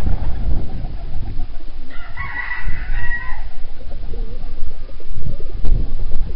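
A rooster crows once, about two seconds in, a single call lasting about a second and a half, over a steady low rumble.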